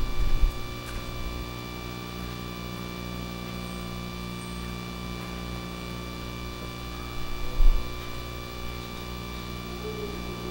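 Steady electrical mains hum made of several evenly spaced tones, with a low thump just at the start and another about three-quarters of the way through.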